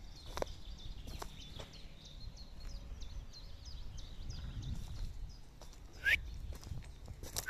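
Small songbirds chirping and twittering steadily in the background over a low outdoor rumble. A louder, short rising call stands out about six seconds in.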